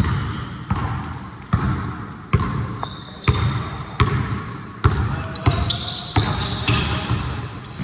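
Basketball dribbled on an indoor court, one bounce about every 0.8 seconds, with sneakers squeaking high and short between the bounces.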